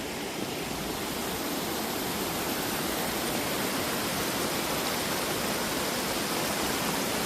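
Steady rush of water pouring over a dam, growing slightly louder.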